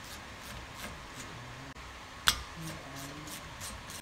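Brake caliper and its metal fittings being handled at the wheel hub: one sharp metallic clank about two seconds in, amid faint light clicks.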